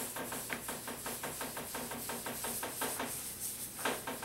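Cloth rubbing carnauba paste wax into a lacquered wooden table top in quick, even back-and-forth strokes. The strokes pause briefly about three seconds in, then a short knock is heard.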